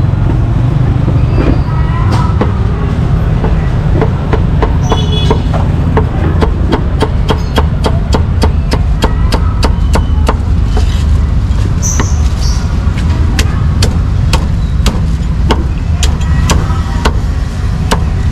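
Meat cleaver chopping roast duck and roast pork on a thick wooden chopping block: sharp, even chops, about three a second, starting a few seconds in. A steady low rumble runs underneath.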